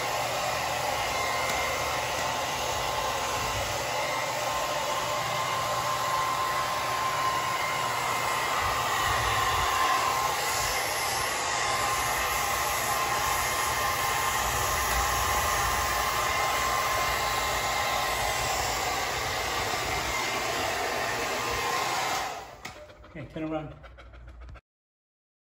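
Hand-held hair dryer blowing steadily while drying a chow chow's coat, a rush of air with a faint steady whine. It switches off about three seconds before the end, leaving a few soft sounds before the audio goes silent.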